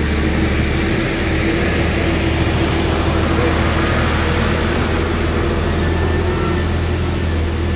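Motor vehicle engine running at a steady speed: a constant low rumble with a steady hum above it.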